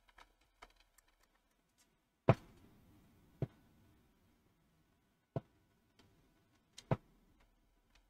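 Sharp clicks and knocks of a screwdriver and small screws being handled against a multimeter's circuit board and plastic case during reassembly, the loudest about two seconds in, with fainter ticks between.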